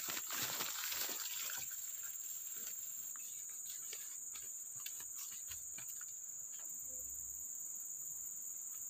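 Steady high-pitched buzzing of insects, crickets or cicadas, calling without pause. Over it, rustling of grass and footsteps during the first second or two, with occasional footfalls after.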